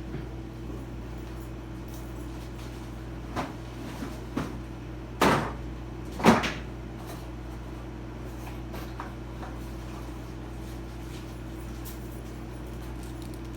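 Four short knocks or clunks, the kind made by objects being handled and set down, the loudest about six seconds in, over a steady low hum.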